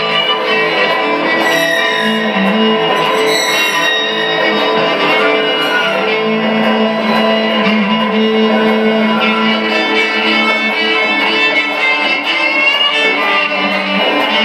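Live violin playing a sustained instrumental passage over guitar accompaniment.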